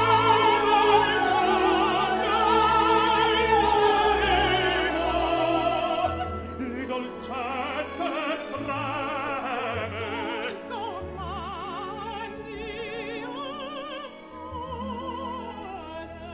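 Operatic soprano and tenor singing with orchestral accompaniment, the voices carrying the wide, exaggerated vibrato typical of modern opera singing. Loud for the first six seconds or so, then softer.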